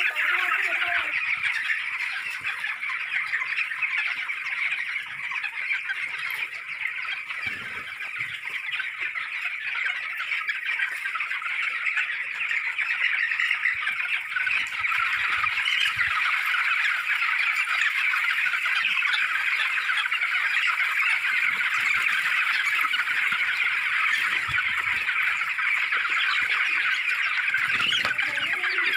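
A large flock of young broiler chickens calling all at once, a steady, dense, high-pitched chorus of overlapping cheeps.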